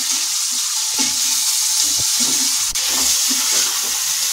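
Chopped tomatoes and spices sizzling in hot oil in a pan, stirred with a wooden spatula. A steady sizzle runs under repeated scraping strokes of the spatula against the pan.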